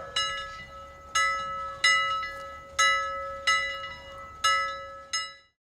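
A bell struck seven times, roughly once a second, each stroke left ringing and dying away between strokes. It cuts off abruptly near the end.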